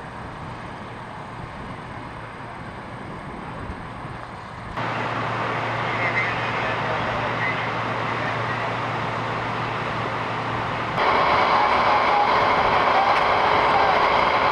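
Steady engine running, with a constant low hum under a noisy rush. It comes in three stretches joined by abrupt cuts, about five seconds in and again near eleven seconds, each louder than the one before.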